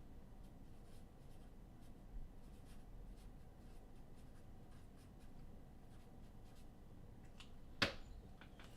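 Faint light scratching and rubbing handling noise, with one sharp click about eight seconds in.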